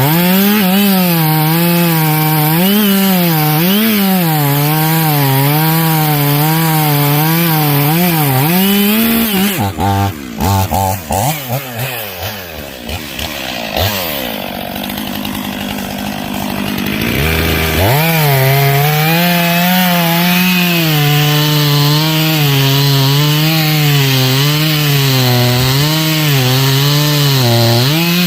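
Two-stroke chainsaw cutting into a tree at full throttle, its pitch wavering as the chain bites into the wood. About ten seconds in the engine note sags and drops off for several seconds, then revs sharply back up and keeps cutting.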